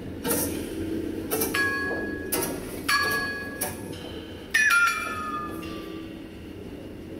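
Live jazz combo in a sparse passage: separate metallic percussion strikes, about one a second, each ringing on, over low double-bass notes. The loudest strike, about four and a half seconds in, rings with a tone that slides down in pitch.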